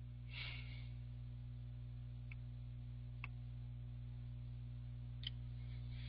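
Quiet room tone with a low steady hum, a soft breath about half a second in, and three faint clicks later on.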